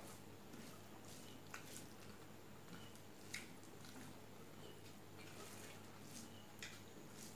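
Faint eating sounds: scattered soft smacks and clicks of chewing while rice and fish curry are mixed by hand. A low steady hum runs underneath.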